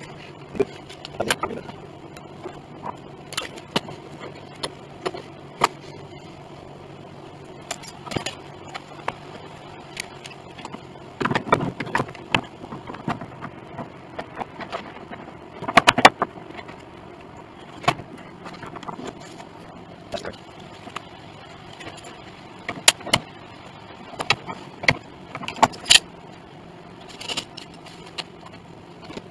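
Steel C-clamps being tightened by hand: irregular metal clicks and clanks as the screw handles are turned and the clamps knock against each other, with a busier flurry of knocks about halfway through, over a faint steady hum.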